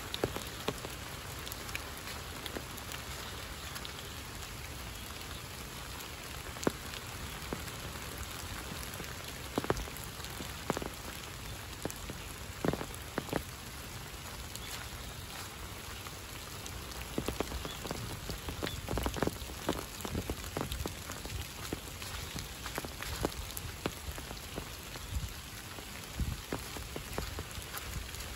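Steady rain falling, with many scattered sharp ticks and taps close by, more of them in the second half.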